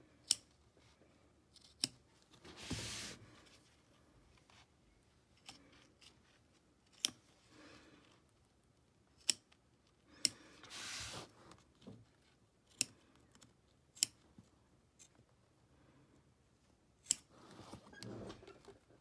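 Applique scissors snipping white vinyl close to the stitching: separate sharp snips at uneven intervals, about ten in all, with a longer rustle twice as the work is turned.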